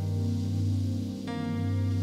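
Slow instrumental background music of sustained, held notes, with a new chord entering just over a second in.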